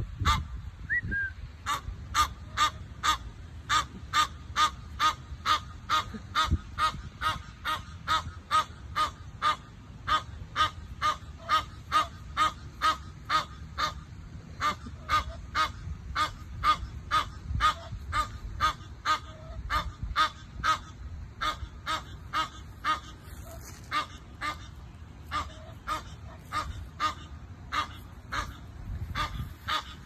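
Egyptian geese honking in a fast, even series, about two to three harsh calls a second without let-up: agitated calling at a squirrel intruding on their space.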